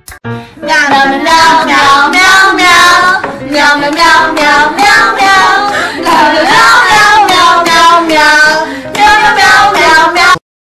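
A high, child-like voice singing over music. It stops abruptly near the end.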